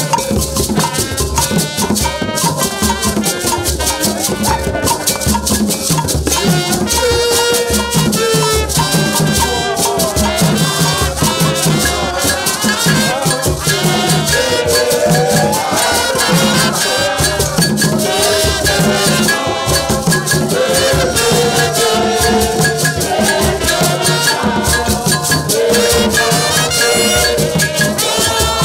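Live drum ensemble playing a fast, steady rhythm on hand drums and a stick-beaten drum, with a shaken rattle on top. Trumpets play a melody over the rhythm.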